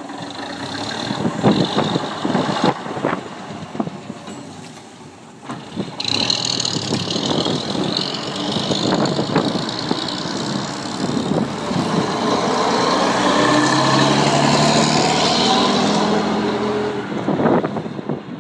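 Guy Wulfrunian double-decker bus's Gardner six-cylinder diesel running as the bus pulls away. A hiss of air comes about a third of the way in, and the engine note rises as the bus accelerates off.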